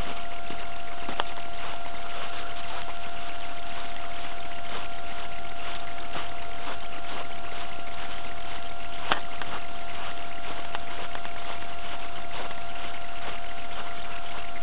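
Footsteps crunching on snow, faint and irregular, under a steady hiss with a constant high hum; a sharp click about nine seconds in.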